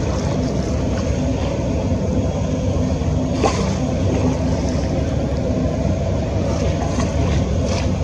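Tour boat's engine running steadily, heard from on board.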